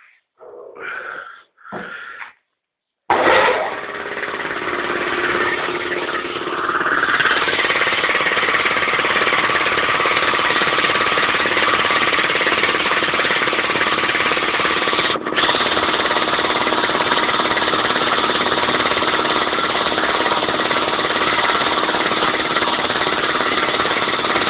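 Homemade air compressor, a 2.2 kW electric motor belt-driving the compressor pump into a 35-litre tank, switches on abruptly about three seconds in and then runs loud and steady, charging the tank with air.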